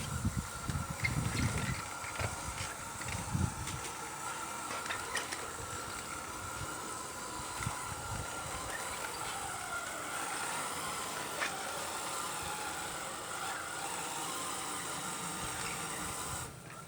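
Steady whine of a radio-controlled model's electric motor and drive, with a hiss. Its pitch dips and rises again about nine seconds in, and there are a few low thumps in the first few seconds.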